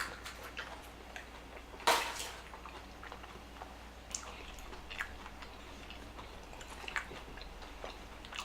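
Close-miked chewing: scattered small mouth clicks, with one louder crunch about two seconds in.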